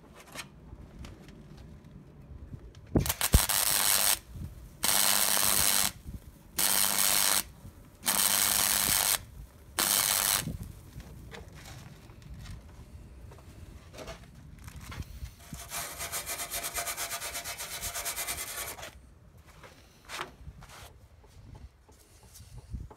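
MIG welder stitch-welding a steel patch into a Land Rover chassis rail: five short bursts of arc noise, each about a second long, with a faint mains hum under them. A few seconds later comes a rubbing noise lasting about three seconds.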